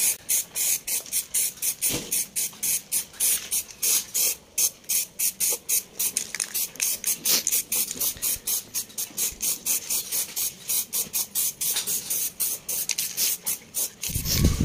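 Aerosol can of Bosny steel gray primer spraying in rapid short hissing bursts, about four or five a second: light misting passes of primer over a plastic motorcycle fairing.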